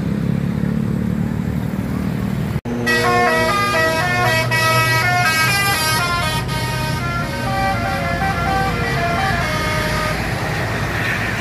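Tour bus's multi-tone 'telolet' Basuri musical horn playing a quick tune of stepped notes over the bus engine. The tune starts about two and a half seconds in, after the engine running alone, and fades out near the end.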